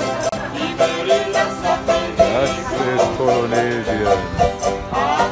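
A small string band of ukuleles and guitars strumming together.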